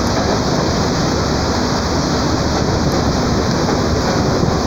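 Steady rushing noise of the moving passenger train meeting a freight train on the next track, its locomotive and tank cars sliding past close alongside, mixed with heavy rain.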